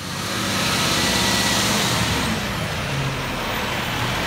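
Diesel engine of a Peterbilt 320 side-loading garbage truck running as the truck drives up and stops at the curb, with a hiss that is strongest in the first two seconds.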